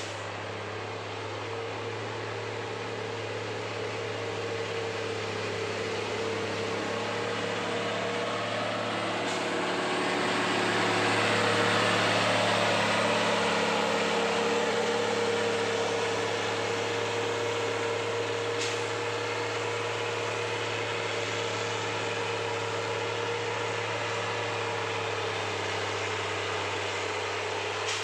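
Caterpillar 140H motor grader's diesel engine running steadily under work. It swells louder around the middle, then eases back.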